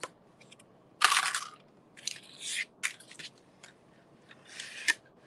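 Craft materials being handled on a tabletop: a few short crunchy scrapes and scattered clicks as the corrugated cardboard fish is shifted and wire and tools are picked up.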